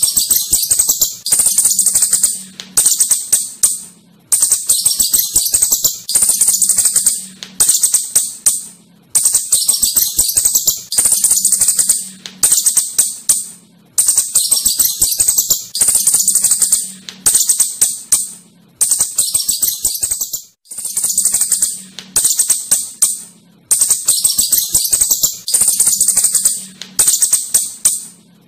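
Asian house shrew giving rapid, high-pitched chittering calls in repeated rattling bursts, each about a second and a half long with brief pauses between.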